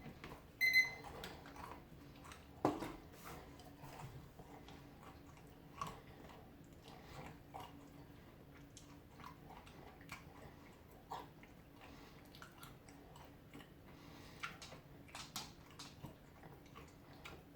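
A mouthful of crunchy honey-roasted peanuts being chewed, with faint, irregular crunches. There are a few sharper knocks in the first few seconds.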